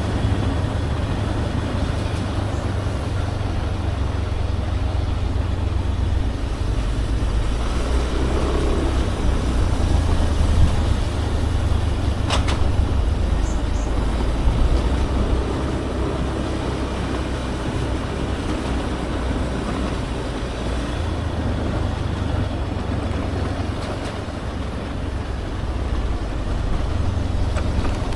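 Motorbike ride: steady engine and road noise with a heavy low wind rumble on the microphone.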